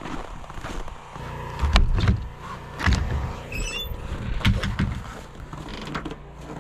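Footsteps and heavy thumps, then a wooden outhouse door pulled open with a short squeak a little past halfway, followed by more knocks as someone steps inside.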